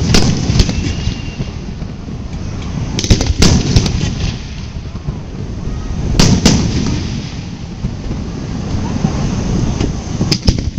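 Aerial firework shells bursting in sharp booms that come in clusters: a couple near the start, several about three seconds in, two about six seconds in and two more near the end, over steady background noise.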